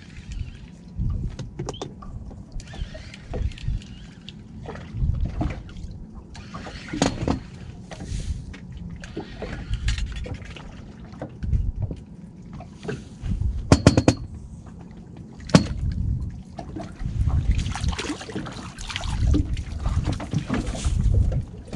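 Water sloshing and trickling against a small boat's hull, over an uneven low rumble. A few sharp knocks come through, two louder ones in the second half.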